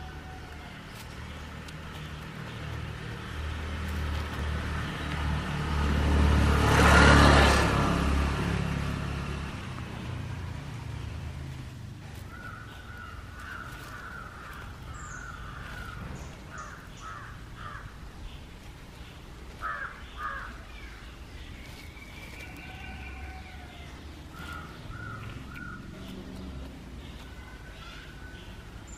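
A passing road vehicle grows louder to a peak about seven seconds in and fades away by about ten seconds. After that, birds call repeatedly in short, pitched calls.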